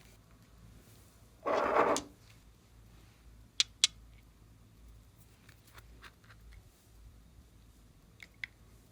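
Slime being worked by hand: a brief wet squelch, then two sharp pops a quarter second apart, with a few faint clicks near the end.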